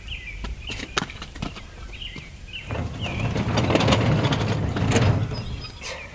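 Small birds chirping in short repeated calls, with scattered sharp clicks. A low rumbling noise swells up about three seconds in and fades away after about three seconds.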